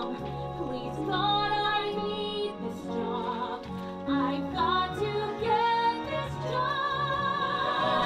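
Song on the soundtrack: a woman singing a slow melody in long held notes with vibrato over instrumental accompaniment.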